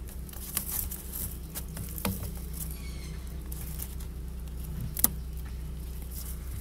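Scattered light clicks and taps from handling a plastic RV sewer hose and its fitting, with one sharper click about five seconds in, over a steady low hum.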